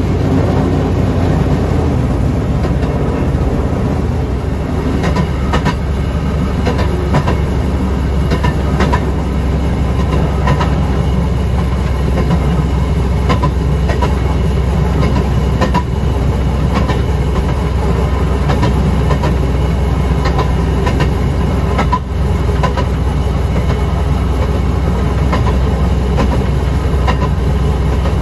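Rail speeder running along jointed track: a steady, loud low engine drone, with the wheels clicking over the rail joints every second or so.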